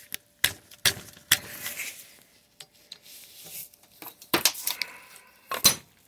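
Steel hand tools and parts clinking and clattering against each other in a cluttered pile on a workbench: a run of separate sharp metallic clinks, with a cluster of louder ones in the last couple of seconds.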